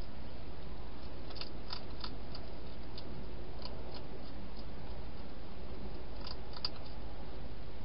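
Wild hedgehog chewing food: short, sharp crunches in a quick cluster about a second in, a few scattered ones after, and another pair near the end, over a steady background hiss.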